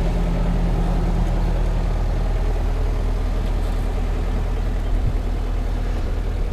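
Yanmar crawler excavator's diesel engine running steadily, with a brief low thump about five seconds in.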